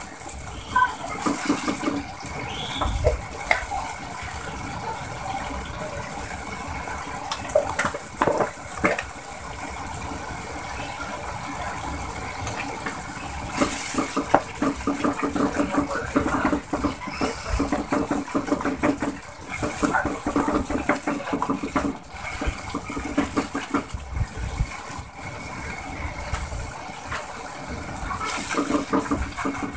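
Liquid bubbling and sizzling in a nonstick pot on a gas stove, with a wooden spatula stirring and scraping ground spices into it and now and then tapping against the pot.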